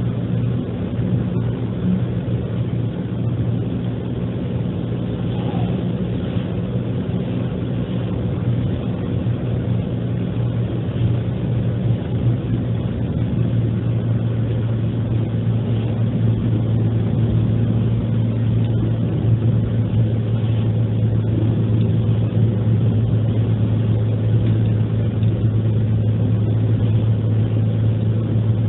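Car engine and tyre noise heard from inside the cabin while driving at a steady speed: a continuous low drone that grows slightly louder across the stretch.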